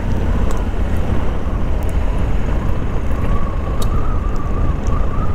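Adventure motorcycle riding along a gravel and hard-packed dirt back road: a steady low engine and road rumble with tyre noise. A faint steady whine comes in about halfway through, and there are a few scattered light ticks.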